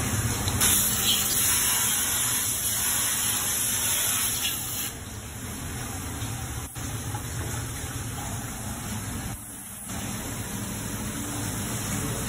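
Steady rush of spraying water over a low hum, stronger for the first few seconds and a little softer from about five seconds in, with a brief dip near ten seconds.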